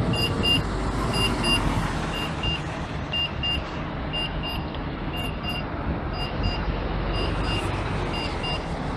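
Articulated city buses running past in street traffic, a steady engine and tyre rumble. Over it a high electronic beep sounds in quick pairs, about once a second, without a break.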